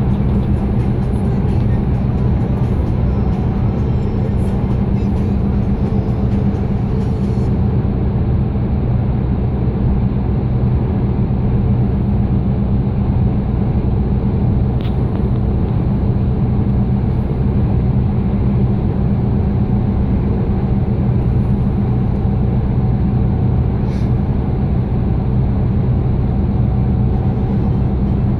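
Steady engine drone and road noise inside a vehicle cabin cruising at motorway speed, with a constant low hum.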